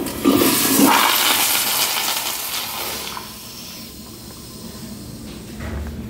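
Commercial toilet with a chrome lever-handle flushometer valve flushing. The rush of water starts suddenly and is loudest for about the first three seconds, then dies down to a quieter flow.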